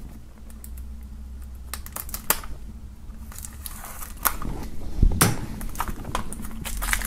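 Knife blade slicing the plastic shrink-wrap film along the edge of a CD jewel case, with scattered crackles and clicks from the film and the plastic case; the sharpest clicks come a little past four and five seconds in.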